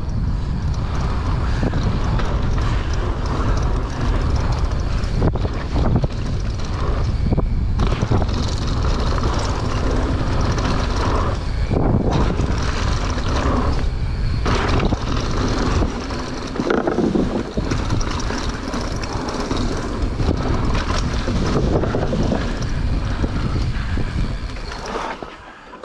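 Wind buffeting the microphone over a continuous low rumble and rattle of tyres on a dirt trail during a fast mountain-bike descent. The noise eases off just before the end.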